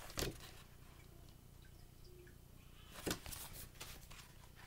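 Picture book pages being handled and turned: a few short paper rustles and flicks about three seconds in, over a low steady room hum.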